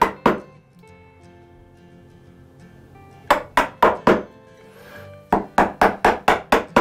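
Chisel struck with a mallet, chopping into the wooden bench top. There is one blow at the start, four quick blows about three seconds in, and a run of about seven blows at roughly three to four a second near the end, under background music.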